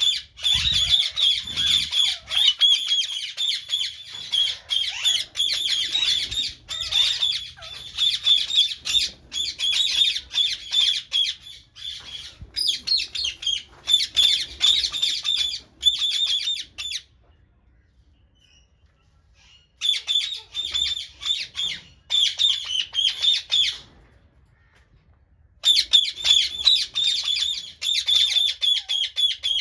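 A flock of birds calling continuously in rapid, high-pitched, overlapping calls. The sound drops out twice, for about two seconds each time.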